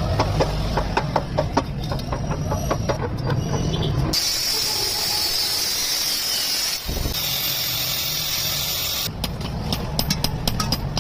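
Metalworking on a steel gas cylinder being made into a wood stove. It starts with a low hum and sharp crackling clicks. About four seconds in, this switches abruptly to a steady high hiss. Near the seven-second mark the low hum returns, and the crackling clicks pick up again toward the end.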